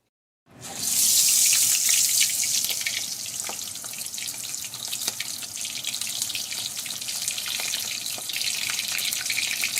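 Marinated sunfish deep-frying in hot oil: a loud sizzle that starts suddenly about half a second in, loudest for the first second or so, then settles to a steady sizzle with small crackles.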